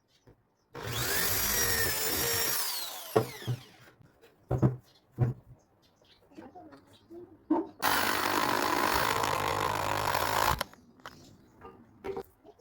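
An electric power tool working wood runs twice, each time for about three seconds. The first run winds down with a falling whine after it is released. A few sharp wooden knocks come between the runs.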